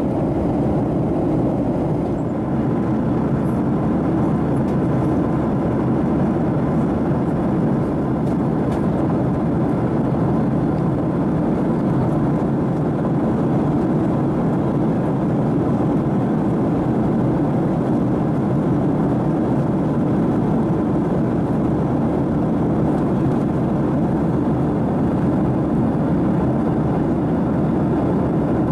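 Steady in-flight cabin noise of a Boeing 737-700: an even rush of engine and airflow noise.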